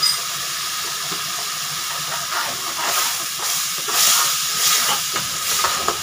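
Spiced onion-tomato masala sizzling steadily in hot oil in a metal kadhai, being fried down until it releases its oil. From about two seconds in, a steel spoon stirs it with repeated scraping strokes against the pan.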